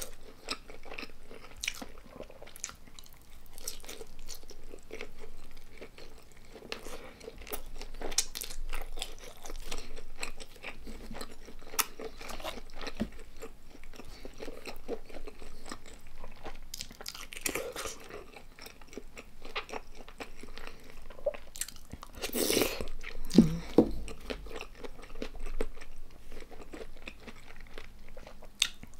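A person chewing and crunching food close to the microphone, with irregular crisp bites that come louder in a couple of clusters about two-thirds of the way through.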